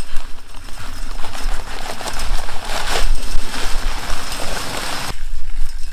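Dry Quikrete Fast-Setting concrete mix pouring from its paper bag into a post hole: a steady gritty hiss that cuts off suddenly about five seconds in. Wind rumbles on the microphone underneath.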